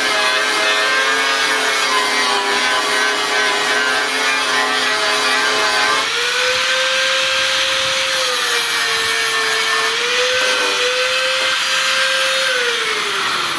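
Electric grinder working on metal: a steady motor whine over a harsh grinding hiss. The pitch changes with load and falls away near the end as the tool winds down.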